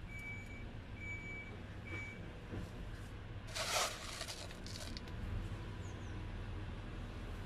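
A vehicle's reversing alarm beeping, about one beep a second, three beeps before it stops, over a low engine rumble. A short loud hiss about three and a half seconds in.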